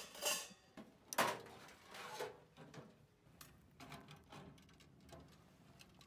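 Sheet-metal camp stove handled with gloved hands: two louder metal scrapes and clanks in the first second and a half, then lighter clicks and rattles as its hinged front door is opened.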